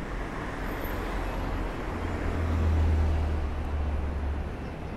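City street traffic, with a vehicle passing close by: a low engine rumble that swells to its loudest about halfway through and then fades.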